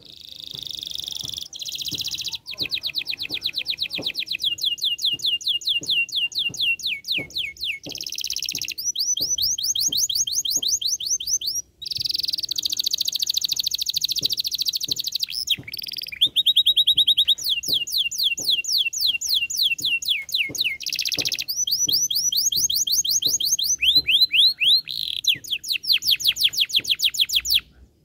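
Domestic canary singing a long song of rapid trills: each phrase is a quick run of the same sweeping note, and the bird moves from phrase to phrase every few seconds with only brief breaks.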